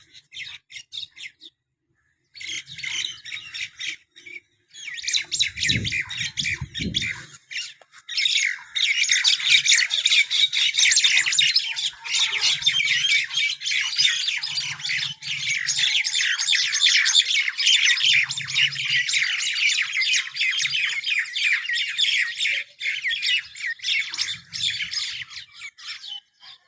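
Many birds squawking harshly at once in an agitated, quarrelling chatter. The calls are sparse and broken at first, then become a continuous din from about nine seconds in. A few low thumps come about six seconds in.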